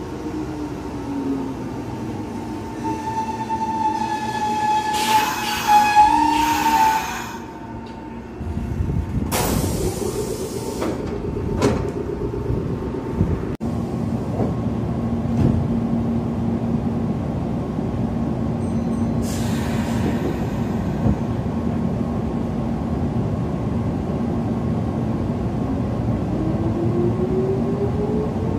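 Meitetsu electric commuter train pulling into the station. Its brakes squeal a few seconds in, then come bursts of air hiss and clicks as it stops and its doors work. A steady hum follows while it stands, and a rising motor whine near the end as it starts to pull away.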